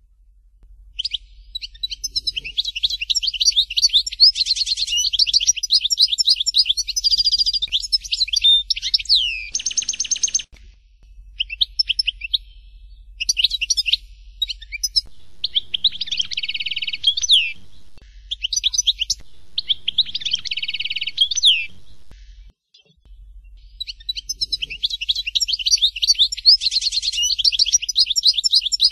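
European goldfinch of the Algerian chardonneret type singing: fast runs of high twittering, trilled and buzzy notes. Long phrases come near the start and near the end, with shorter bursts and a brief pause in between.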